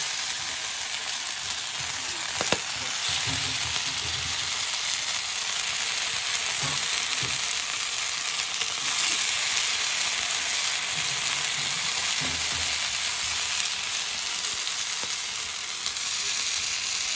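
Marinated chicken pieces sizzling steadily as they fry on a hot flat griddle (tawa), the sizzle growing a little louder about three seconds in. A single sharp click sounds about two and a half seconds in.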